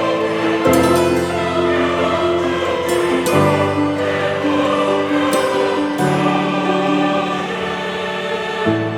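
Background music with a choir singing sustained chords that change every second or two.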